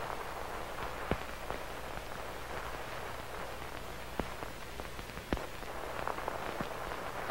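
Old-film surface noise: a steady hiss and low hum with scattered sharp crackles and pops, the loudest about a second in and about five seconds in.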